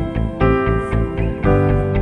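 Background music: plucked guitar chords over a steady beat.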